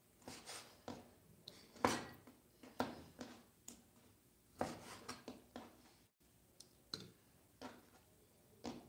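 Cleaver blade knocking on a plastic cutting board as it slices through raw chicken liver: short, irregular chops, about two a second.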